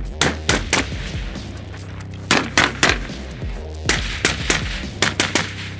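AR-15-style semi-automatic carbine firing quick strings of two or three shots, about a dozen shots in all, over background music.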